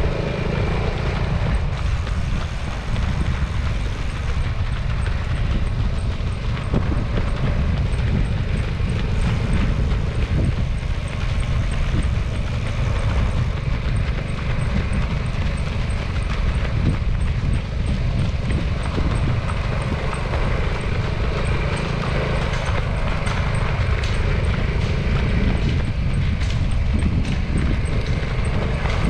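Steady low rumble of a moving vehicle with wind on the microphone, and faint footfalls of marathon runners on the road.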